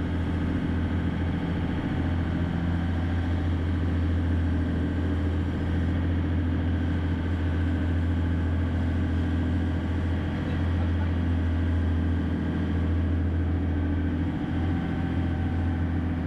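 Fishing boat's engine running at a steady speed, a deep even hum with no change in pitch.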